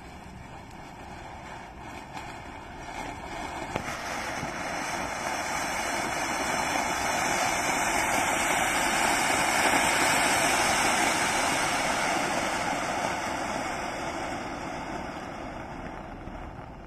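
Clay-pot fountain firework (matka anar) spraying sparks with a steady hiss, swelling to its loudest about halfway through and then dying down near the end. One sharp pop a little before 4 seconds in.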